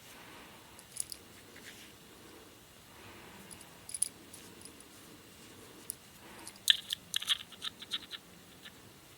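Small sharp clicks and light scraping of metal tweezers against a Zippo lighter's metal insert as the cotton-wool packing is picked out. Scattered clicks at first, then a quick run of them about seven to eight seconds in.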